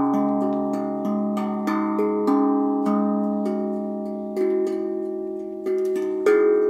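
A hand-played tuned percussion instrument sounding a slow melody of single struck notes, each ringing on and overlapping the next as it slowly fades.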